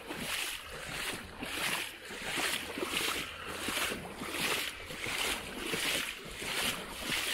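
Footsteps wading through floodwater about six inches deep, with a watery swish and splash at each stride, about two strides a second.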